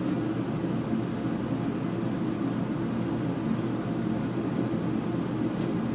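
Kitchen range hood exhaust fan running steadily, a low hum with air noise, venting the kitchen.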